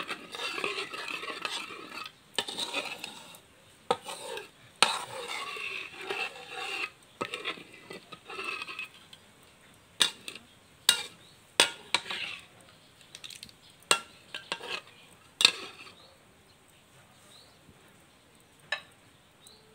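Metal spatula stirring and scraping thick curry paste around a wok, followed by a series of sharp knocks of the utensil against the pan. The stirring stops about three-quarters of the way through, leaving a single tap near the end.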